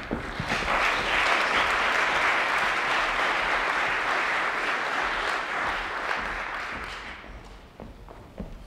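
Theatre audience applauding at the end of a performance. The clapping swells at once, holds for several seconds, then dies away near the end.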